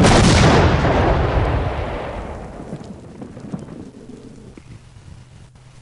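An explosion: one sudden loud blast that dies away slowly over several seconds into a low rumble.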